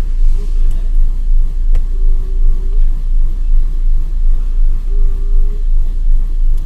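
Renault Duster's four-cylinder engine idling roughly with a misfire, a deep rumble that swells and dips about twice a second. A single short click about two seconds in.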